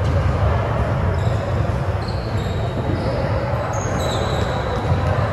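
Sneakers squeaking on a hardwood gym floor as players move during a volleyball rally, with several short high squeaks in the second half, over a steady low rumble in the hall.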